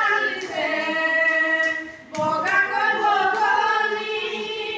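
Singing voices carry a song with long held, wavering notes. The singing breaks off briefly about two seconds in, then starts again abruptly.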